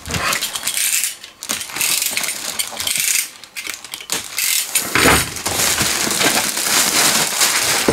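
Clear plastic film crinkling and rustling as it is handled and pulled off a cardboard box, in uneven bursts with a quieter stretch in the middle, then steady crinkling through the second half.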